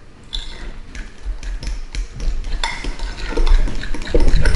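A fork beating ricotta in a glass bowl: quick strokes with the tines scraping and clicking against the glass, growing louder about halfway through.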